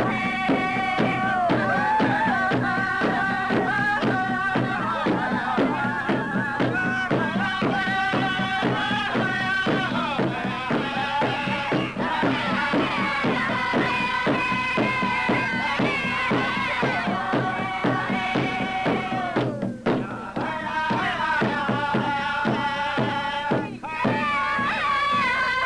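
Native American dance song: a group of singers over a steady, evenly struck drumbeat, with two brief breaks near the end.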